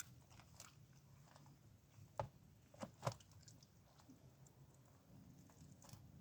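Close-miked eating: soft, quiet chewing with a few sharp, crisp crunches of food, the loudest three about two and three seconds in.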